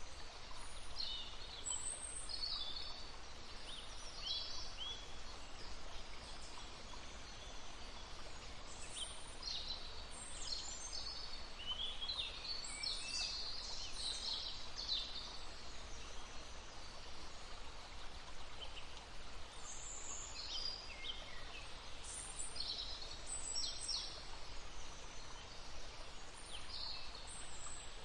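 Several songbirds singing in short high chirps and trills, over the steady babble of a brook.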